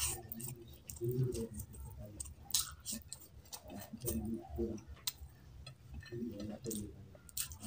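Close-miked chewing with many wet mouth clicks and lip smacks, a person eating rice and curry by hand.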